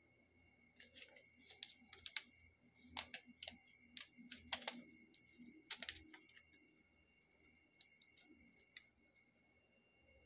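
Paper handling on a journal page: a quick run of short, crisp rustles and crackles as patterned paper pieces are pressed and smoothed down, dying away to a few scattered ticks after about six seconds.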